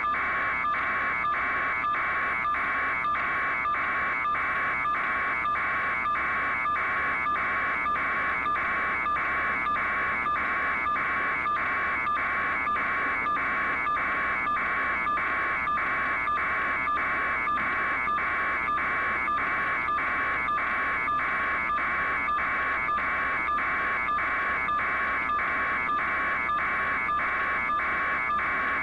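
An electronic buzzing tone pulsing evenly, a little under two pulses a second, at a constant level.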